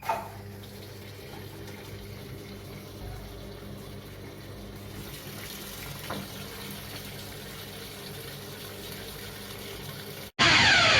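Water running steadily into a Panasonic top-loading washing machine's tub through its repaired inlet solenoid valve, with a low steady hum underneath. It cuts off abruptly near the end.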